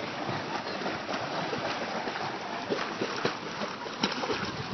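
Steady wash and splash of lake water at the shore, with a few small sharp splashes about three seconds in and near the end.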